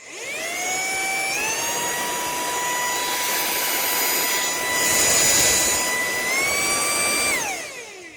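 DiliDala cordless handheld vacuum cleaner's motor switched on, its whine rising as it spins up. It steps up in pitch about a second and a half in, with a louder rush of air around five seconds in, and steps up again near the end. Then it switches off and winds down with a falling whine.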